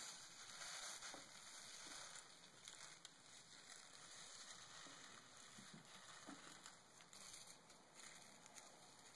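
Near silence: a faint steady hiss of room tone, with a few faint scattered clicks.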